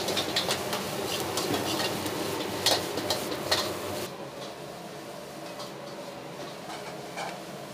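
Fried rice sizzling in a wok over a gas burner, with a metal ladle clanking and scraping against the wok many times. About four seconds in the sizzle stops, leaving a quieter background with a few faint clicks.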